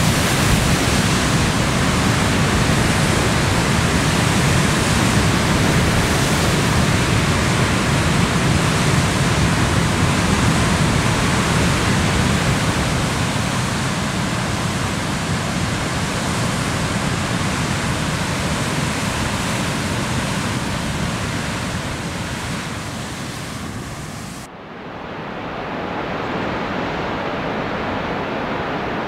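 Pacific surf breaking on a basalt rock shore: a continuous, dense wash of noise with no separate crashes standing out. Near the end it cuts off abruptly to a quieter, duller rumble.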